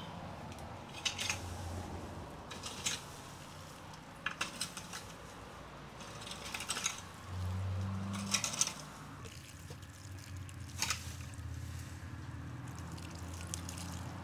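Water trickling from a jug over mushrooms as they are rubbed clean by hand, with scattered short clicks and knocks. A low hum runs underneath and swells for about a second midway.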